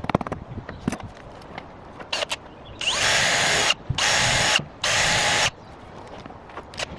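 Power tool run in three short bursts of under a second each, with a few clicks and knocks before.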